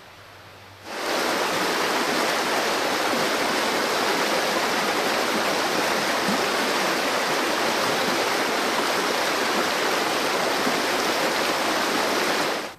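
A rocky creek's rapids rushing steadily over stones, a loud even wash of water. It starts abruptly about a second in and cuts off just before the end.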